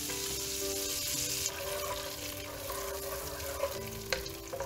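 Butter sizzling as it melts and bubbles in a nonstick wok. Near the end a wooden spatula stirs it, with a couple of sharp clicks against the pan.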